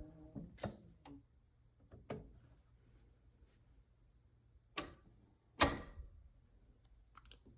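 A door swinging shut under an adjusted hydraulic door closer, with scattered light clicks and knocks and a louder thump about five and a half seconds in as the door shuts.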